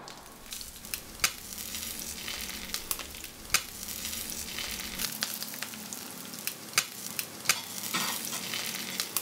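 Steady hiss with irregular sharp crackles and pops, a sizzling sound, the loudest pops about a second and a quarter in and three and a half seconds in.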